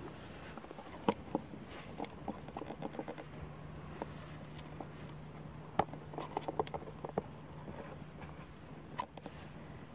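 Irregular small clicks and light knocks, coming in clusters, as live mud-covered fish shift and flap against the slats of a bamboo fish trap. A low steady hum runs through the middle.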